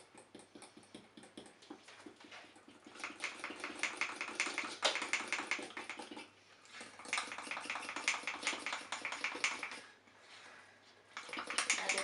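A fork beating thick chocolate cake batter in a ceramic mug: fast, even clinks and taps of metal on the mug. It starts softly, then turns brisk about three seconds in, with brief pauses around six and ten seconds.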